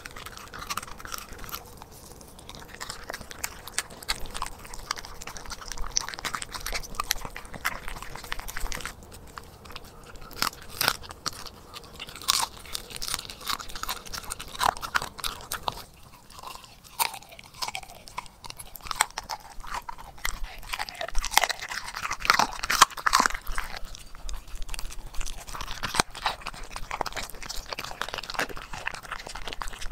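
Corgi chewing raw food close to the microphone: irregular sharp crunches and wet chomping as it bites through a raw chicken head and a frozen waffle-shaped treat.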